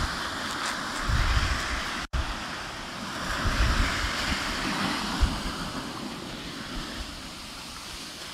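Surf breaking and washing up a sand beach, with strong wind gusting across the microphone. The sound briefly cuts out about two seconds in.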